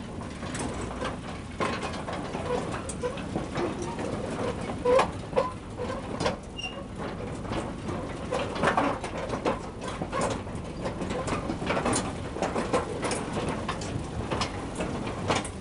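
Rusty narrow-gauge tipper wagons rolling slowly along the track, with irregular clanks and knocks and short squeaks from the running gear.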